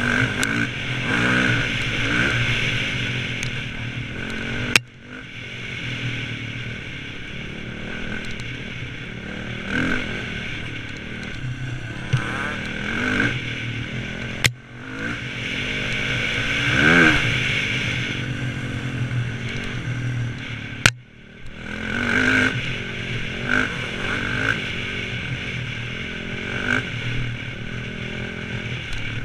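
Enduro motorcycle engine running and revving up and down while being ridden, with clattering. Three sharp clicks cut the sound short for a moment each.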